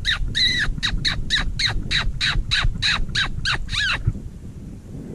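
Hand-blown fox whistle sounding a rapid string of short squeals, about three a second, each falling in pitch, a rabbit-distress imitation blown to call in a fox. The squealing stops about four seconds in.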